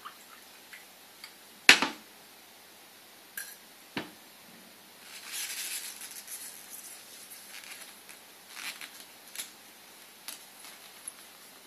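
Glass knocking against a glass-ceramic cooktop: one sharp clink about two seconds in, then several lighter taps, with a cotton tea towel rustling in the middle as the hot glass is handled.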